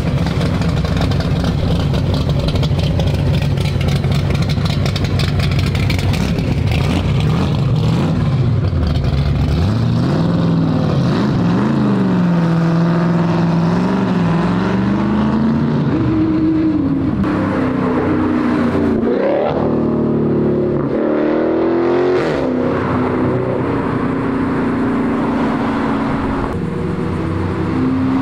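Car engines running: a steady low idle at first, then from about nine seconds in, engines revving and accelerating, their pitch climbing, levelling off and dropping repeatedly as the cars pull away.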